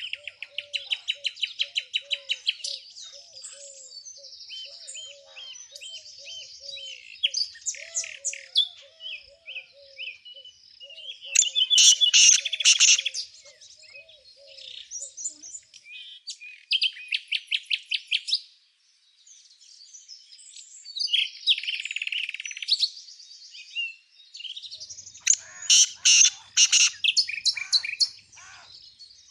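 Several small songbirds singing and chirping: rapid trills and chirp series overlapping one another, loudest about twelve seconds in and again near the end. A soft, low, repeated note runs beneath them through the first half.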